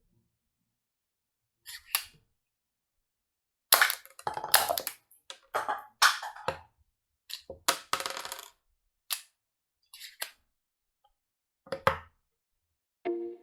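Handling noises from unboxing a plastic toy pistol and its packaging: a string of short rustles, clicks and clatters, about ten in all, with dead silence between them.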